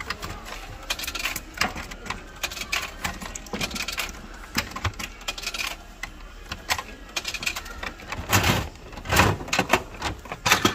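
Irregular clicking and clinking of 100-yen coins being fed one by one into a Bandai Gashapon capsule-toy machine's coin slot, then louder clunks from the machine about eight seconds in and again near the end.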